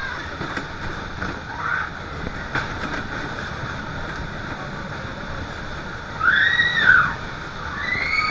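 Steady rushing noise of the Groove Rider fairground ride in motion, heard from a rider's seat, with a loud, high rising-and-falling scream about six seconds in and another starting near the end.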